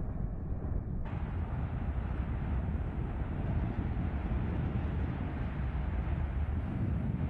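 Steady low rumbling noise from an outdoor field recording, with no distinct events. About a second in the sound turns brighter and fuller as a different recording takes over.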